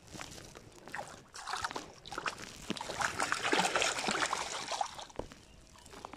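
Shallow river water splashing and sloshing at the bank as a hooked trout is landed and hands go into the water, a quick run of wet splashes that builds up about a second in and dies down near the end.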